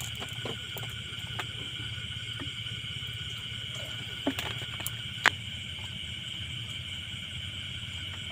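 Steady high chirring of night insects over the low, even hum of a portable butane stove burning under a pot. A few short handling clicks; a sharp clink about five seconds in is the loudest.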